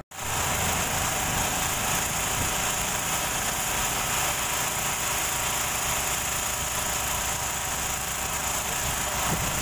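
Komatsu PC78US excavator's diesel engine running steadily, a constant dense drone with no hammering strokes.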